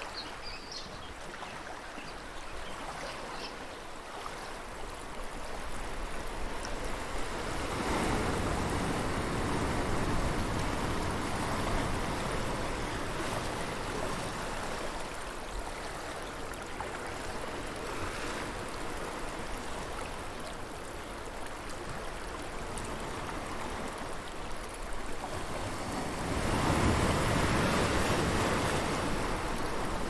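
Ocean surf washing in, a steady rushing that swells with breaking waves about eight seconds in and again near the end. A few faint bird chirps near the start.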